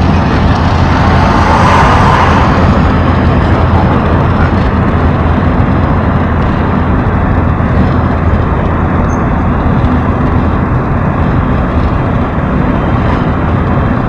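Steady road and engine noise inside an Opel car's cabin while cruising on a highway, with a low hum under the tyre rush. It swells briefly about two seconds in.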